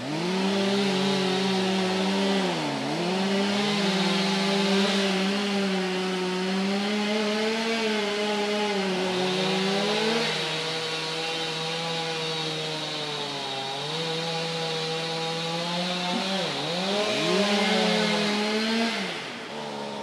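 Chainsaw cutting wood: the engine runs at high speed and dips sharply in pitch a few times under the load of the cut before recovering. It starts abruptly and falls off just before the end.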